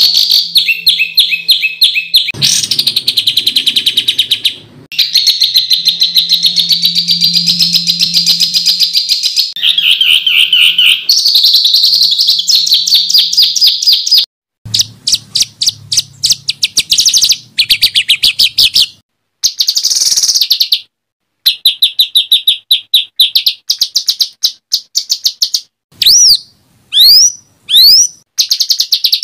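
Songbird song from a masteran tutoring recording: fast, harsh trills and rapidly repeated notes in phrases broken by short gaps. Three sharp swooping whistles come near the end.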